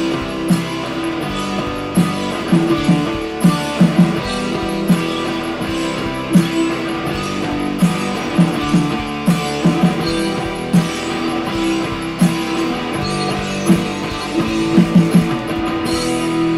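Background music: guitar-led instrumental with plucked notes and a steady beat.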